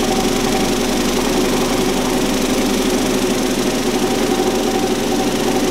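Automatic sanding machine running steadily, smoothing the surface of a 3D-printed plastic part.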